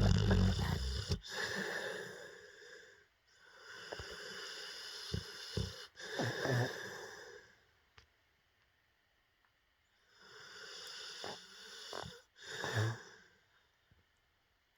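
XL bully dog snoring in its sleep. There are three long, noisy snoring breaths, with brief sharp sounds in the second and third. The first is the loudest and has a low rattle at its start, and a two-second quiet gap comes before the last breath.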